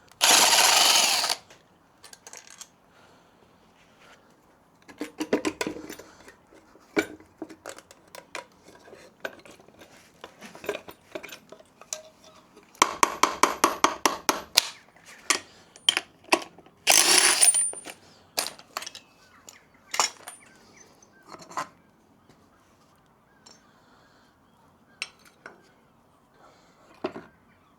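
A power driver runs in short bursts to undo engine casing bolts, between light metallic clinks of bolts and hand tools being picked up and set down. The longest burst, around 13 to 14 seconds in, comes as a rapid run of strokes.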